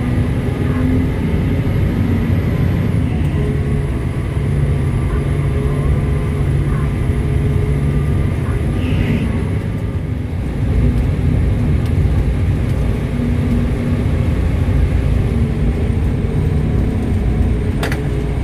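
Komatsu HD785-7 haul truck's V12 diesel engine and drivetrain running steadily under way, heard from inside the cab as a loud, even drone. A couple of sharp clicks come near the end.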